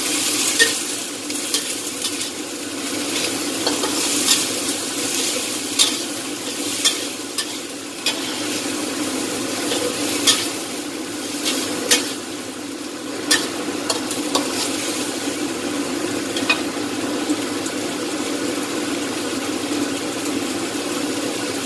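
Long beans stir-frying in a steel wok: steady sizzling, with a metal spatula scraping and clicking against the pan every second or two. The clicks thin out and stop near the end.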